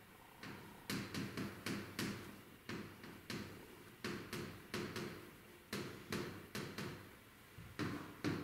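A run of short, sharp knocks and taps, about two to three a second, each with a brief ring after it.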